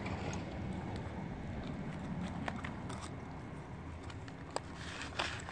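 Cats eating from a plastic plate: wet chewing and scattered sharp crunches of kibble, with a few louder clicks near the end, over a low steady rumble.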